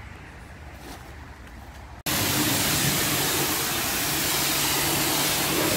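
High-pressure washer lance spraying water onto a car's bodywork: a loud, steady hiss with a low hum under it, cutting in suddenly about two seconds in after faint background noise.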